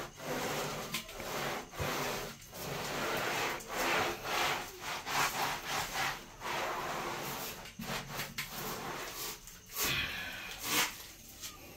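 Wet rag scrubbing ceramic floor tiles in repeated back-and-forth strokes.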